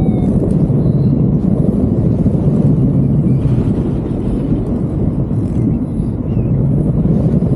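Wind rushing over the microphone of a paraglider in flight: a steady, loud low rumble.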